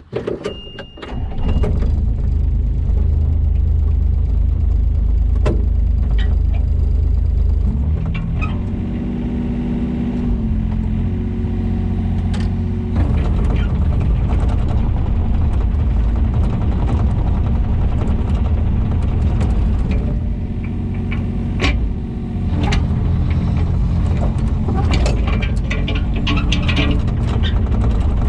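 Takeuchi TB125 mini excavator's diesel engine running under hydraulic load while digging. Its pitch shifts several times between about eight and twelve seconds in, with scattered knocks and clatters of stone and bucket that come more often near the end.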